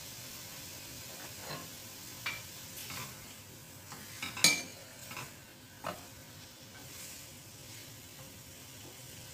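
Chicken pieces sizzling in oil and green curry paste in a frying pan, stirred with a wooden spatula. Several knocks and scrapes of the spatula against the pan fall over the steady sizzle, the loudest about four and a half seconds in.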